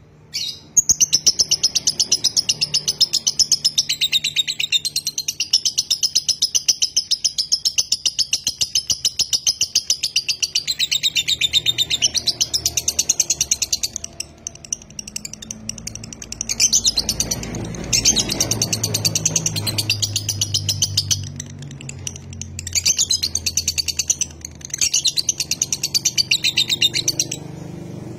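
Fischer's lovebird chattering in the long, fast, unbroken 'konslet' style (ngekek panjang): a rapid run of high repeated notes, breaking off briefly about halfway through and again about three quarters of the way through. This drawn-out chatter is the trait Indonesian lovebird keepers prize as konslet.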